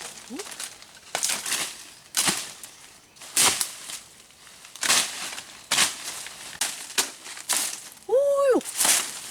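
Irregular crunching and crinkling noises, about one a second, with a short pitched cry near the end.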